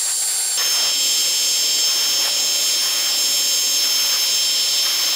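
Electric heat gun running: a steady rush of blown air with a high motor whine. The whine shifts slightly in pitch about half a second in.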